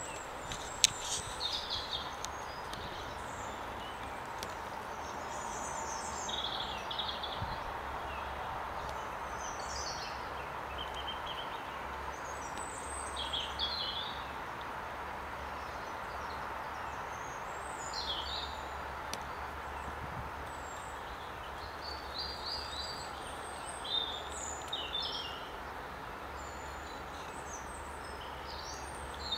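Small birds chirping in short high calls scattered throughout, over a steady background hiss of outdoor ambience, with one sharp click about a second in.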